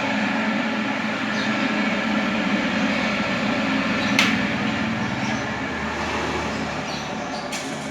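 Stainless-steel centrifugal spinner machine running, a steady motor hum and whir with several held tones. There is a sharp click about four seconds in and another near the end.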